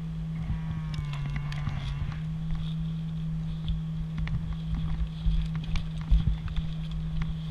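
Footsteps and gear rattle as a player runs and drops in grass, with irregular knocks and clicks of handling on the worn camera over a steady low hum. A short, wavering pitched call sounds in the distance about a second in.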